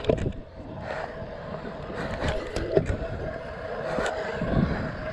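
Stunt scooter wheels rolling on skatepark concrete: a steady rolling rumble with a faint hum, broken by a few sharp clacks.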